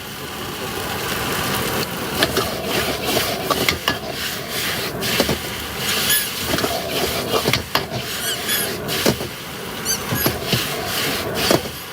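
Cooking clatter: a metal spatula scraping and knocking on a hot pan or griddle over a steady sizzling hiss. There are several short high squeaks about halfway through and again later on.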